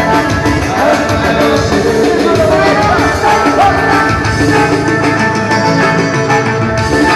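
Loud live band music playing without a break.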